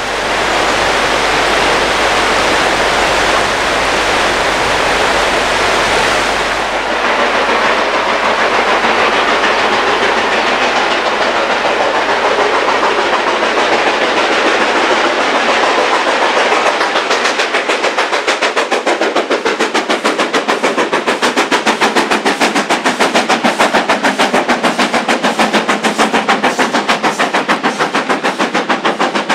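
Steam train passing: a steady rush of noise at first, then from about halfway a rapid, even chuffing of the locomotive's exhaust beats that carries on to the end.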